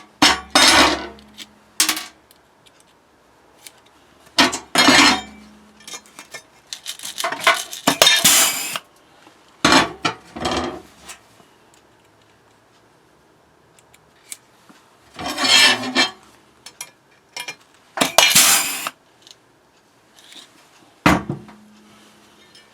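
Pneumatic air riveter pulling aluminium blind rivets with steel mandrels, in a series of short bursts of air and metal clatter separated by pauses.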